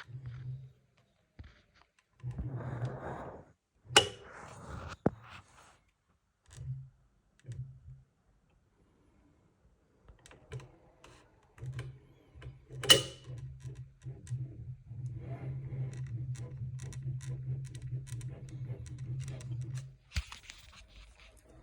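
Anycubic Kobra 3 3D printer's print head pushed along by hand, giving a rough, rattling grind in several short bursts, then one long stretch of about eight seconds, with two sharp knocks. The owner calls it an extreme noise from the print head and suspects the drive motor, the internal belt or the print head itself.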